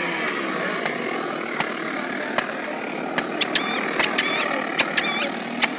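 Jumping stilts bouncing on pavement: a sharp knock on each landing, a little faster than once a second, over steady background noise. From about halfway through, a high squeak from the stilts comes with each bounce.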